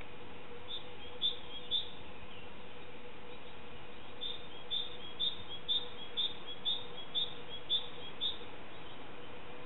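Common chiffchaff singing: short, clipped notes about two a second, alternating slightly in pitch. There is a pair about a second in, then a steady run of eight from just under five seconds.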